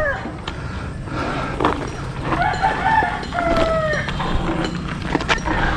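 Roosters crowing, several long crows one after another, each holding its pitch and then dropping off at the end.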